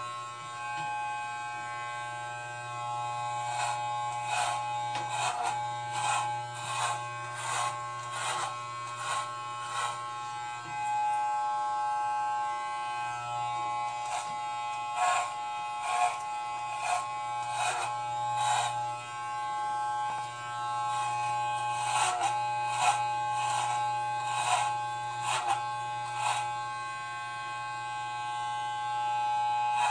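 Wahl electric hair clippers running with a steady buzz. Frequent short rasps break the buzz as the blades cut through long, thick hair during a head shave.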